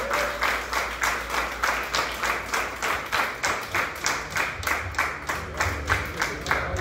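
A crowd clapping in unison in a steady rhythm, about four claps a second. A low bass note of music comes in about halfway through.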